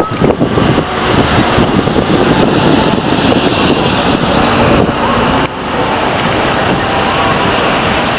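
Storm wind buffeting the microphone, a loud, steady rushing noise that drops a little about five and a half seconds in.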